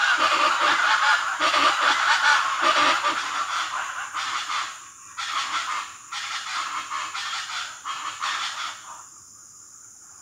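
A flock of birds calling loudly, many harsh calls overlapping. The calls thin out after about four seconds and stop about nine seconds in, leaving only a faint steady background.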